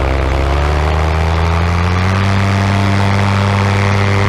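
Paramotor engine and propeller running loud, speeding up over the first two seconds and then holding a steady pitch.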